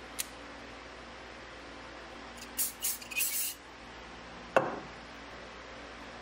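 Small metal knife parts, a nickel silver handle scale with copper pins and a saw-blade tang, handled on a paper-covered bench: a light click, a few short scraping, hissy sounds, then one sharp knock with a brief ring as a metal piece is set down or tapped.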